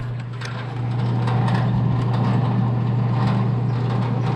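Steady low mechanical hum, like an engine or motor running, with faint light clicks of parts being handled.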